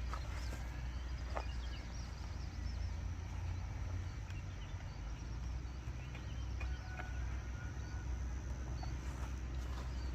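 Outdoor rural ambience: a steady low rumble with faint bird chirps in the first few seconds and a few light clicks.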